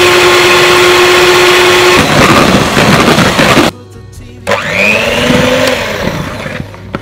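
Electric hand mixer running with its beaters in a bowl, whipping egg whites; the steady motor whine turns rougher about two seconds in, cuts off after three and a half seconds, and the mixer starts up again a moment later in pancake batter of eggs and flour.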